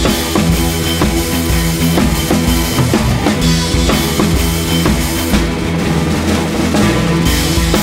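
Background music with a steady drum-kit beat of kick and snare under sustained pitched instruments.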